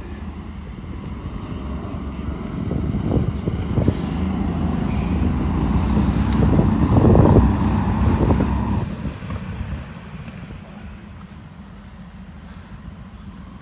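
Several racing go-karts approaching and passing, their engines growing steadily louder to a peak about seven seconds in, then fading quickly about nine seconds in to a low background rumble.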